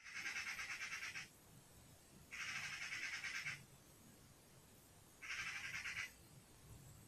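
Eurasian magpies chattering: three bursts of rapid rattling calls, each about a second long, a second or two apart.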